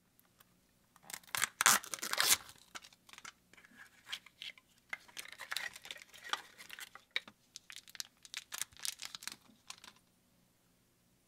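Printed plastic wrappers of a Zuru 5 Surprise Mini Brands capsule crinkling and tearing as they are peeled off by hand. The loudest tearing comes about one and a half to two and a half seconds in, followed by a string of softer crinkles that stops about ten seconds in.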